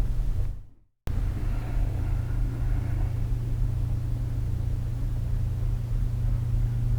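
A steady low rumble that fades out about half a second in, starts again abruptly about a second in, and fades out again near the end.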